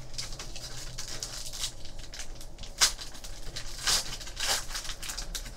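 Foil wrapper of a Panini Prizm baseball card pack being handled and torn open: a run of crinkles and rips. There is a sharp snap just under three seconds in, and the loudest tearing comes around four seconds in.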